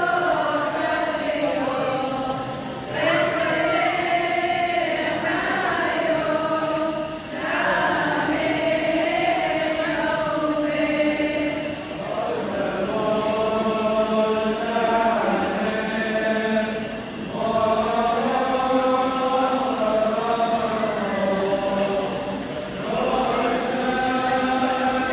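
A group of voices chanting a Syriac Orthodox liturgical hymn, mostly on one melodic line, in phrases of about five seconds with short pauses between them.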